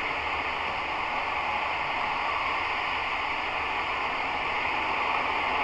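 A steady hiss of static, like an untuned radio, with no change in level.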